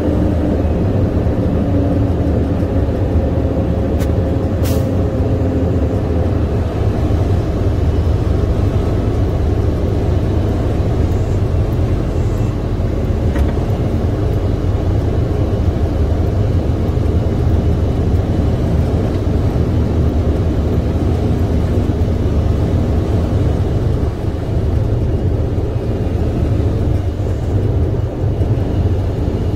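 International semi tractor's MaxxForce 13 diesel engine running steadily, heard from inside the cab as the truck creeps around at low speed. There is a brief air hiss about four and a half seconds in.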